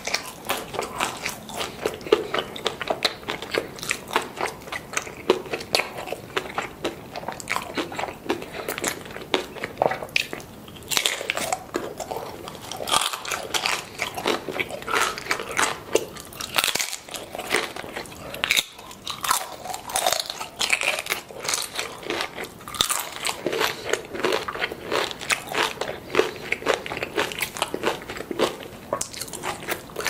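A person biting and chewing crisp tortilla chips dipped in salsa: a dense, uneven run of sharp crunches.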